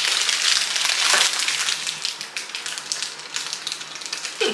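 Crackling and crinkling of a sealed plastic cookie wrapper being handled close by, with a cookie being broken apart; busiest in the first two seconds, then thinning out.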